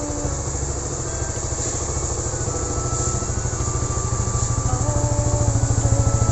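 Honda RS150R motorcycle's single-cylinder four-stroke engine idling with a steady, even beat, growing louder toward the end as the exhaust outlet comes close.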